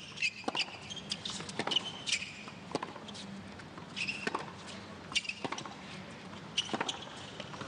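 Tennis rally on a hard court: sharp pops of racquet strikes and ball bounces, with short high shoe squeaks between them.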